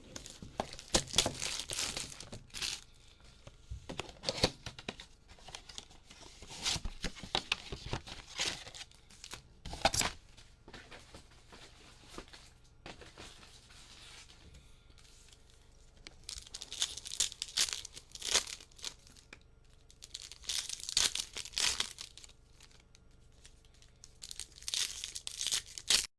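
Trading-card packaging being torn open and crinkled in bouts of ripping and rustling: a Topps Chrome Update mega box and its wrapped packs being opened. There is a quieter lull in the middle, and the sound cuts off abruptly at the end.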